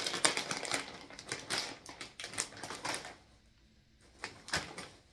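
Plastic chip bag crinkling as it is pulled open: a rapid run of crackles for about three seconds, then two single crinkles.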